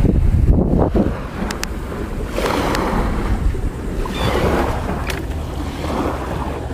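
Wind buffeting the microphone in a heavy, uneven rumble over the wash of small surf breaking on a sandy beach, swelling and easing, with a few faint clicks.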